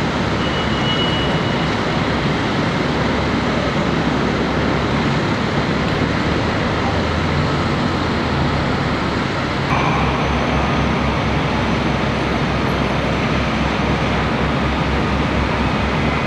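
Steady city street noise of traffic and idling vehicles, heard from high above the street. A faint high tone sounds briefly near the start, and the sound shifts slightly about ten seconds in.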